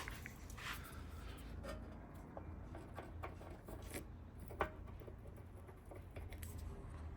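Quiet room tone with a steady low hum and a few faint clicks and light knocks from handling, the sharpest about four and a half seconds in.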